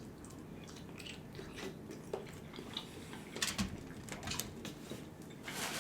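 A person quietly chewing a seafood boil, with scattered soft mouth clicks.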